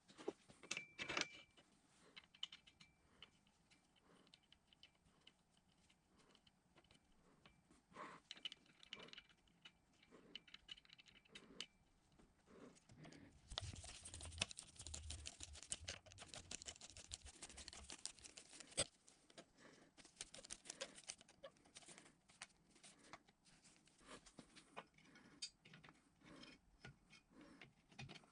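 Faint, scattered metallic clicks and taps of small parts and hand tools being handled on a cast-iron drill press head, with a busier stretch of rubbing and rattling about halfway through as a screwdriver works inside the casting.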